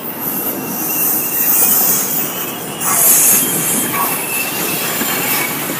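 DART light rail train running past on the tracks, a steady rail rumble with thin wheel squeal and a brighter high hiss about three seconds in.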